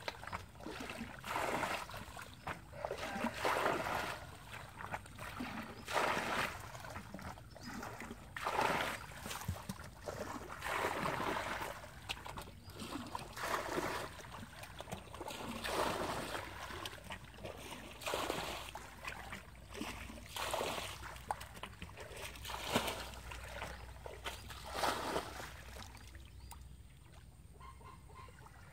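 Water splashing in a string of separate strokes, about one every second or two, stopping near the end.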